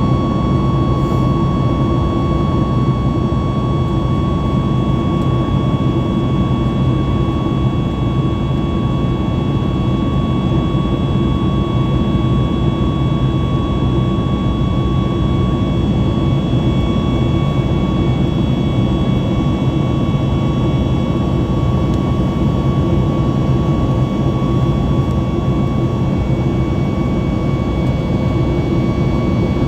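Cabin noise inside a Boeing 737 MAX 8 climbing after takeoff: the CFM LEAP-1B turbofans and the airflow make a loud, unbroken roar with a steady thin whine over it.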